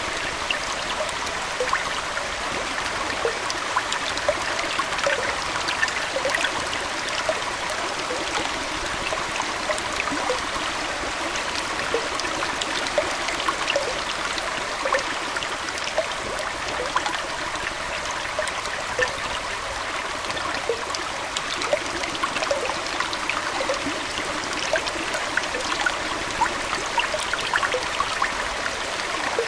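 Aquarium water trickling and splashing in a steady rush, dotted with many small, quick droplet and bubble plinks.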